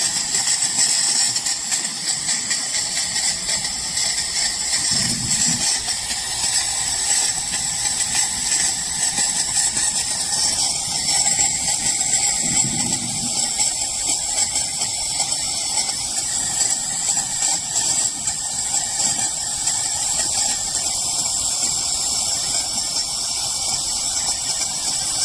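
Steam wand of a De'Longhi Stilosa espresso machine hissing steadily and loudly as it vents steam.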